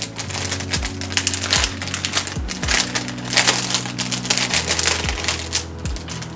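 Background music with held bass notes and a steady kick-drum beat, over dense crinkling and rustling of packaging being handled.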